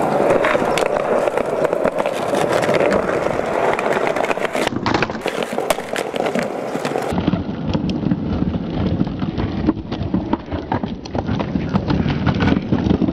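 Skateboard rolling over stone plaza paving, its wheels clacking over the joints in a fast, rhythmic clatter. The sound changes abruptly twice, about five and seven seconds in.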